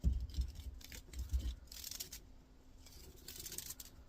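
Copper winding wire being pulled and unwrapped from a motor stator by hand, scratching and rustling in short bursts, with a few low knocks of handling in the first second and a half.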